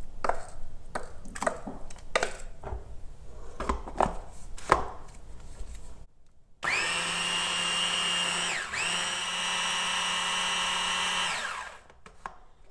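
A wooden spoon scraping and knocking as apple compote is spooned out of a stainless saucepan into a chopper bowl. Then a Bosch hand blender's motor on its mini-chopper bowl runs steadily for about five seconds, dipping once partway, as it purées the compote smooth, and winds down near the end.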